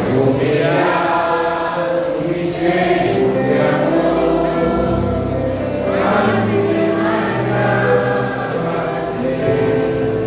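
Vocal group singing a gospel song together, several voices in harmony holding long notes.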